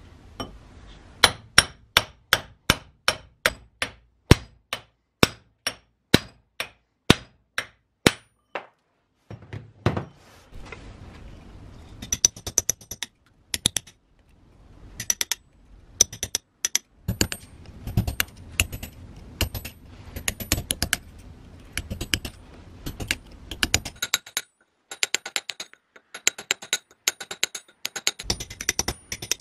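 Hammer blows on steel tools against a rusty sledgehammer head, knocking the old wooden handle remains out of the eye. First a steady series of sharp ringing strikes, about two a second, for some eight seconds, then quicker, irregular lighter metallic taps and clicks with duller thuds under them.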